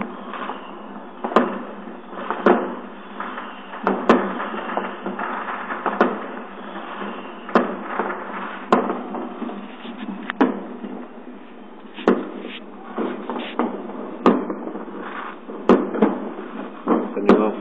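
New Year's fireworks heard through a closed window: sharp bangs from firecrackers and aerial bursts every second or two, over a continuous crackle of many fireworks going off around the neighbourhood.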